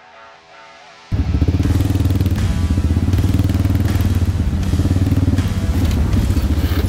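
A guitar music track ends, and about a second in loud off-road side-by-side engine noise cuts in suddenly, running steadily on the move with repeated knocks and rattles.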